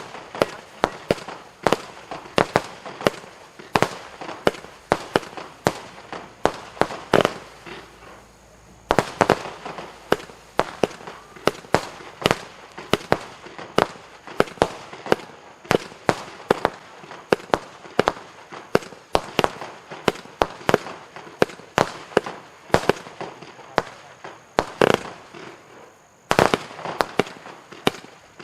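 Consumer fireworks cake (battery) firing a rapid series of sharp shots, about two to three a second, with a brief pause about eight seconds in and another shortly before the end.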